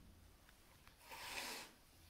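A cat hissing once, a short breathy hiss about a second in.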